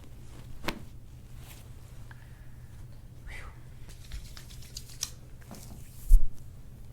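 Hands and clothing shifting on a chiropractic treatment table: soft rustling and scattered clicks, one sharper click just under a second in, and a short heavy thump near the end, over a steady low hum.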